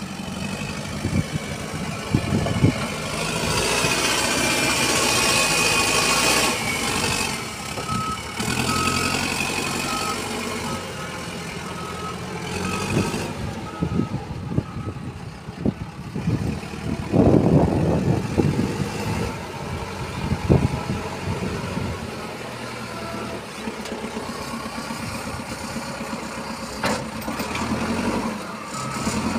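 Backhoe loader's diesel engine running and revving as the machine drives and lifts a full front bucket of soil. Its reversing alarm beeps in an even series of short beeps for several seconds about a third of the way in, and starts again near the end.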